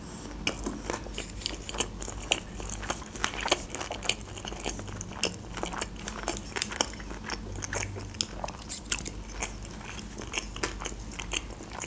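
A person chewing sushi rolls, with many small wet clicks and smacks at an irregular pace.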